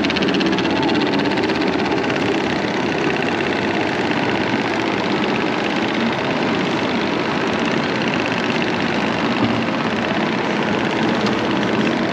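Mack Rides steel spinning coaster car running along its track: a steady, loud mechanical rumble and rattle.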